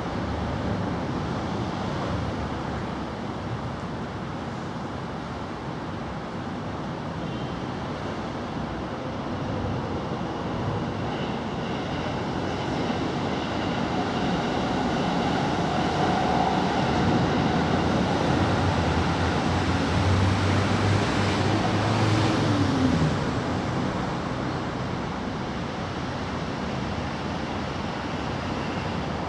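Steady outdoor background rumble like distant traffic. It swells for several seconds in the middle, with a low hum that drops away suddenly near the end of the swell.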